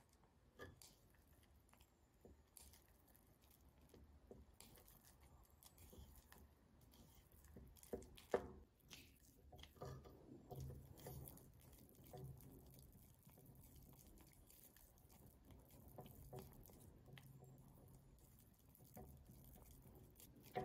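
Silicone spatula stirring green pigment and liquid binder into a thick watercolour paste in a glass measuring jug: faint wet squishing and scraping with soft clicks against the glass, and two sharper knocks about eight seconds in.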